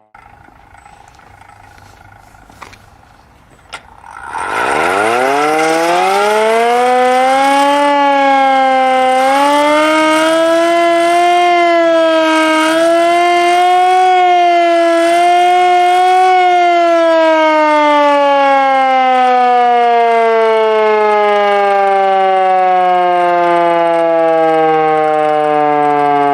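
Secomak 447 siren on test: after a couple of clicks it starts about four seconds in, winding up in pitch over a few seconds into a loud, steady wail that wavers slightly up and down. From about two-thirds of the way through it slowly winds down, the pitch falling steadily.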